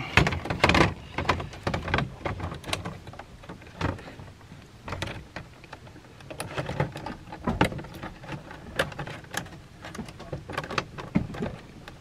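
Irregular small clicks, taps and scrapes of a small screwdriver working the wire terminals of a plastic Honeywell HZ311 zone control board, with thermostat wires being handled.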